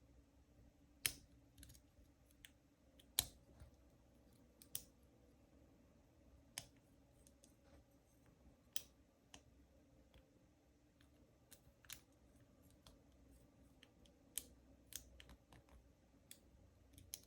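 Faint, irregular metallic clicks of a lock pick working the pin stack inside an Ace 50mm laminated padlock under heavy tension, a single click every second or so.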